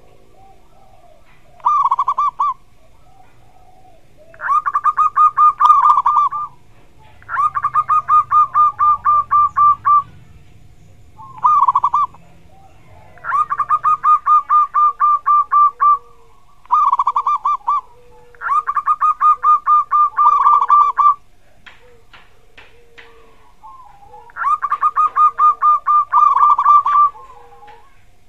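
Zebra dove (perkutut) singing: repeated runs of rapid staccato cooing notes, most lasting two to three seconds, with a few shorter bursts between them.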